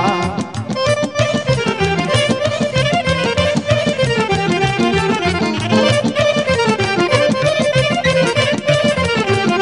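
Instrumental break in a Vlach-Romanian folk song: the band plays the melody over a steady beat, with no singing.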